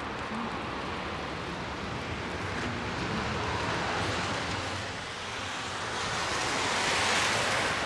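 Street traffic on a wet road: an even hiss of tyres on wet asphalt, swelling as a car passes near the end.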